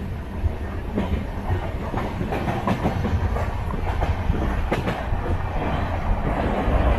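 Sleeper-class passenger coach running on the rails: a steady low rumble with irregular sharp clicks as the wheels pass over rail joints.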